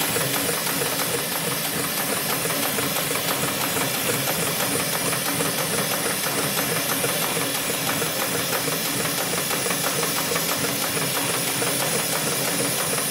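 Hightex #7373BP automatic spiral sewing machine running steadily, its needle stitching a spiral through a thick stack of cloth discs to make a buffing wheel, with a fast, even stitching rhythm and a steady hiss.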